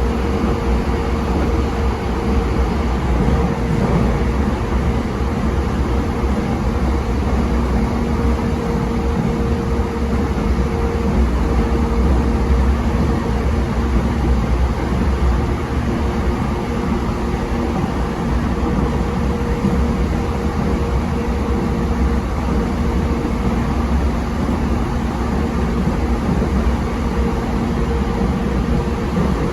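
E233 series 7000 subseries electric train running at steady speed: continuous wheel and rail rumble with a steady hum at constant pitch.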